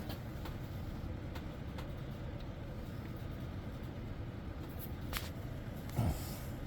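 A few faint clicks and light knocks of small metal engine parts being handled, over a steady low rumble; a slightly louder low bump comes near the end.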